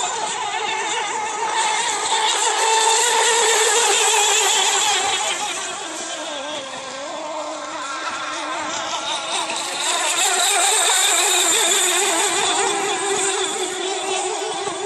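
Electric radio-controlled racing boats running flat out: a high, wavering motor-and-propeller whine over the hiss of spray, swelling loudest twice as boats pass close, about two seconds in and again about ten seconds in.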